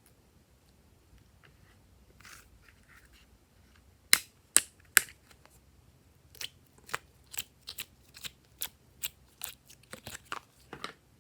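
Scissors snipping: three loud, sharp cuts about four seconds in, then a steady run of lighter snips at about two a second.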